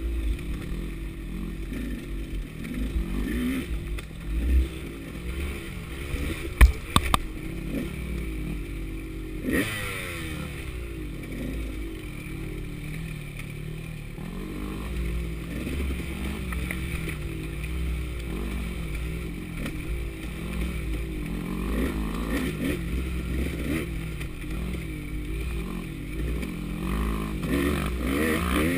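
KTM 200 two-stroke dirt bike engine revving up and down as it is ridden along a rough trail, rising and falling with the throttle. A sharp knock stands out about six and a half seconds in.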